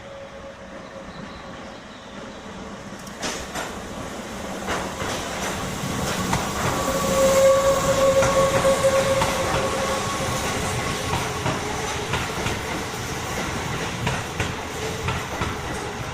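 A Keihan Main Line electric train running along the platform, its wheels clacking over the rail joints; it grows louder from a few seconds in, with a steady whine at its loudest about halfway through.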